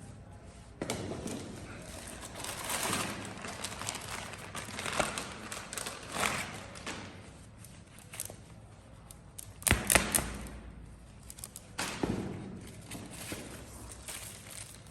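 Rustling and handling noise from cricket kit being unpacked, broken by several knocks and thuds, the loudest pair about ten seconds in.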